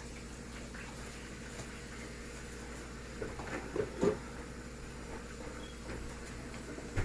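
Puff puff dough balls deep-frying in hot oil: a faint, steady sizzle, with a few soft knocks about three to four seconds in.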